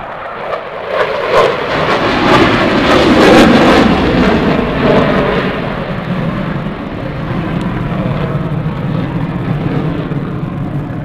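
Aircraft flying past at an airshow. Its engine noise swells to a peak three to four seconds in, then eases off into a lower steady rumble.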